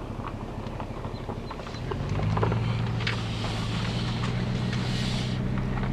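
Truck engine running steadily, getting louder about two seconds in, with a hiss of higher noise from about three seconds to five and a half.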